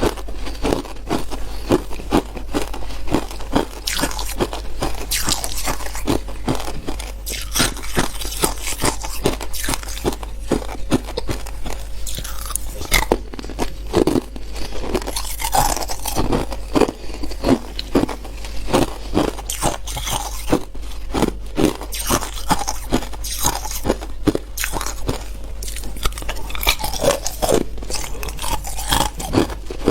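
Hard clear ice being bitten and chewed close to the microphone: a continuous run of sharp crunches and cracks, several a second.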